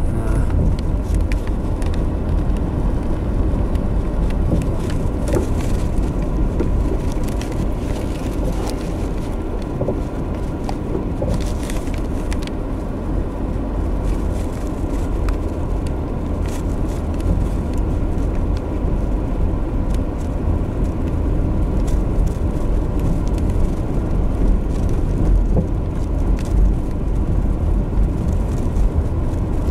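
Car engine and tyres rumbling steadily, heard from inside the cabin as the car rolls along an unpaved woodland track, with occasional light clicks and knocks from the rough surface.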